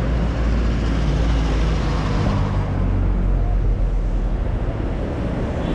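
Street traffic: a motor vehicle's engine running close by, louder in the first half and easing off after about three seconds.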